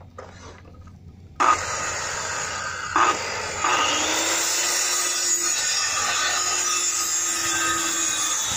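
Corded circular saw cutting plywood: a few light knocks, then the saw starts suddenly about a second and a half in and runs loudly. From about halfway through, the blade feeds through the sheet with a steady whine over a harsh high hiss.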